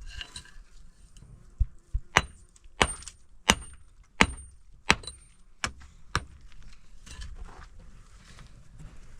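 Hammering: about seven sharp blows in a steady rhythm, roughly two-thirds of a second apart, several with a short, high metallic ring.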